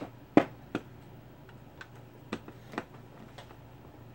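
A few sharp, separate clicks and light taps of small hand tools being handled on a workbench, the loudest about half a second in and fainter ones later, over a faint steady low hum.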